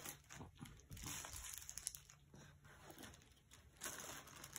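Faint, irregular crinkling and rustling of plastic candy wrappers as a child rummages by hand through a cloth bag of candy.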